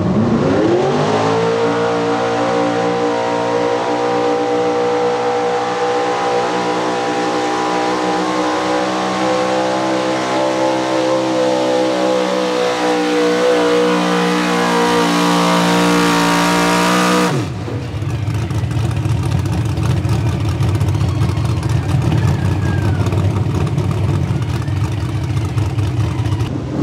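Small-block V8 engine of a 4x4 pulling truck revving up hard as the truck launches with a 40,000-pound weight sled, then held at high revs under heavy load for about 17 seconds. The throttle is then cut, the pitch drops suddenly, and the engine settles into a low, uneven idle.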